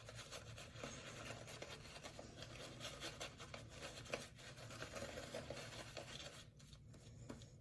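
Synthetic shaving brush working soap lather on the face, making faint, continuous scratchy rubbing that eases off near the end.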